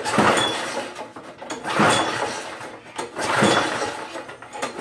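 Poulan Pro push mower's small engine being pull-started four times, about one pull every second and a half, the recoil starter cranking it over without it catching. It is running on a homemade fuel-vapor setup with a shot of starting fluid near the carburetor.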